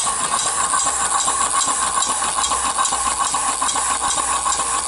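Small single-cylinder engine converted from a water pump, with a wooden slide valve, running slowly on compressed air. A steady hiss of air with a fast, even clatter.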